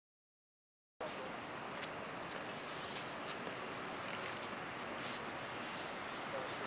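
Dead silence for about the first second, then crickets chirring steadily in a high-pitched chorus, with a few faint ticks.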